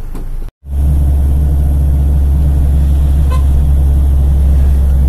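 Steady, loud, low drone of a moving vehicle's engine and road noise, taken in through an open side window. It cuts out for a moment about half a second in, then carries on evenly, with a brief faint toot about three seconds in.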